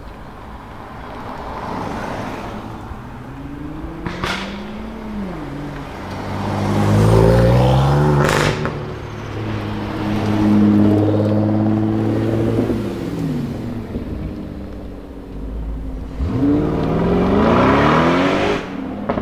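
Several different performance cars accelerating hard and driving past, one after another. Their engine notes climb and fall in pitch, loudest near the middle and again near the end.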